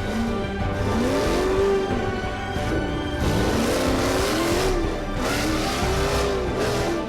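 Background music, with repeated rising and falling whining tones about once a second.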